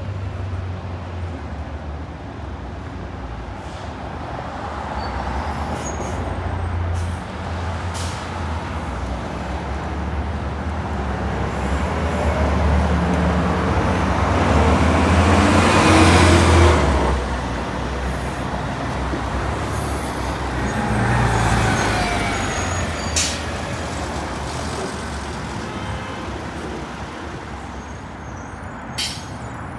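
New York City transit buses (a New Flyer C40LF CNG and a New Flyer Xcelsior XN40) driving past in street traffic. Engine and tyre noise swells to its loudest as a bus passes close about halfway through, then fades, with a smaller swell a few seconds later and a couple of short air-brake hisses in the second half.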